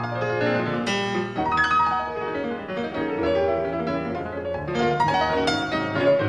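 Solo piano music, quick runs of notes over lower bass notes.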